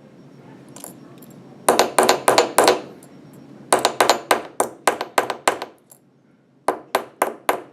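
Small hammer tapping a wire rivet head against a steel anvil, in three quick runs of sharp, ringing metal strikes at about four a second, spreading the rivet end into a rounded head.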